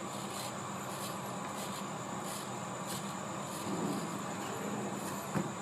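Steady hum of a small electric motor and gearing, with faint regular ticks and a single sharp click about five seconds in.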